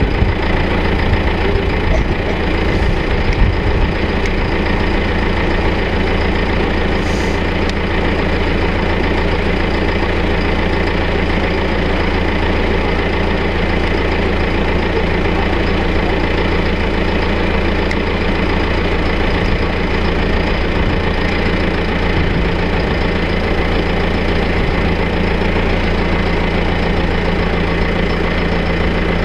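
Diesel engine of a John Deere tractor running steadily close by while its front loader lifts a hanging load. A steady low tone grows a little stronger about halfway through.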